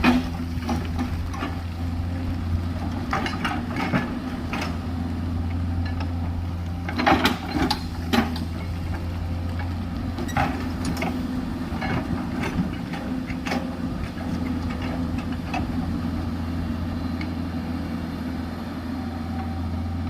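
JCB 210LC tracked excavator's diesel engine running steadily, with a series of sharp knocks and clanks over it, loudest about seven to eight seconds in.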